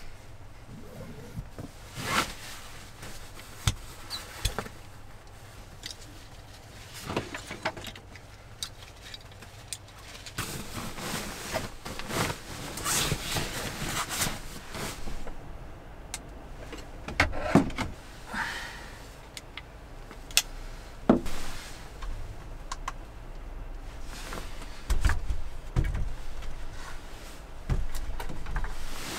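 Sleeping bag being pulled out of its nylon stuff sack and spread out by hand: irregular rustling of fabric with scattered clicks and knocks.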